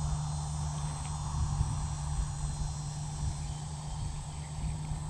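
Steady insect chorus, with a louder low steady hum beneath it.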